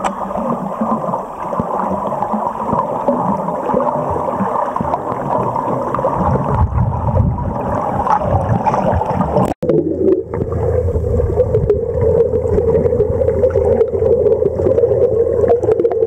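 Muffled rushing and gurgling of water picked up by an underwater camera as a swimmer strokes overhead. The sound breaks off sharply about halfway through and resumes as a steadier, lower hum.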